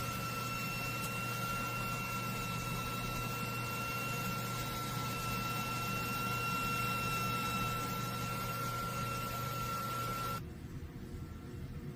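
Flashforge Adventurer 5M 3D printer running, a steady hiss with a high whine held at an even pitch; it cuts off suddenly about ten seconds in.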